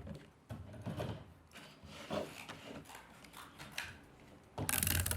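Paper and card being handled and stuck down, with small rustles and taps, then a short, loud rasp near the end.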